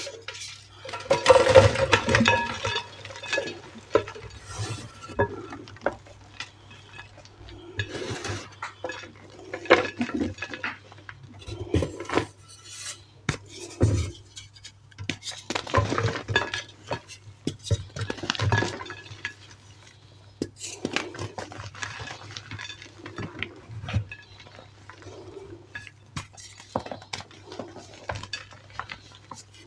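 Reformed gym chalk crushed and crumbled by hand over a ceramic plate: irregular crunches and crumbling, the loudest burst about a second or two in, softer powdery squeezing near the end.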